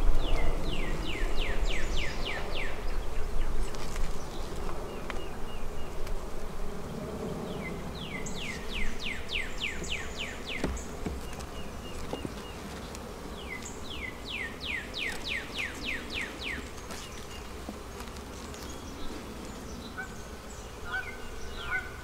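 Honeybees humming over an open hive. Runs of quick, high, falling chirps come about every six seconds, and there is a single sharp knock near the middle.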